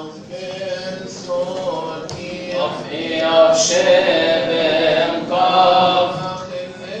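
Slow religious chant sung by men's voices, holding long notes.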